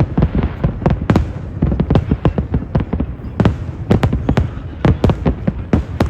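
Fireworks shells bursting in rapid, irregular succession: sharp bangs about two or three a second over a steady low rumble.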